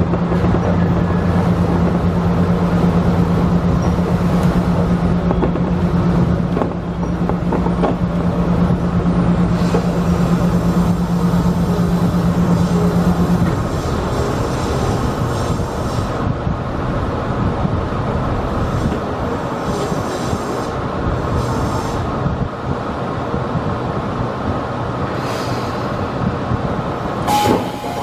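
Tobu Skytree Line local electric train running on the track, heard from the front cab: steady running noise with a low hum that stops about halfway. Faint high wheel squeal comes in as the train takes a curve, and there is a sharp noise near the end.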